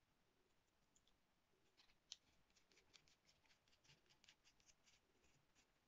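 Faint small ticks of a stylus pen's battery cap being screwed back onto its barrel after a battery is fitted: one tick about two seconds in, then a quick run of ticks for about three seconds.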